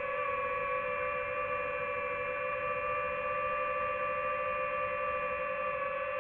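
DJI FPV drone's motors and propellers whining steadily as it hovers, a single held pitch with overtones.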